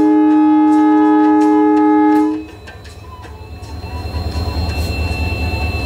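Diesel locomotive's horn sounding one loud, steady blast that cuts off about two seconds in. The locomotive's engine rumble then builds as it draws past.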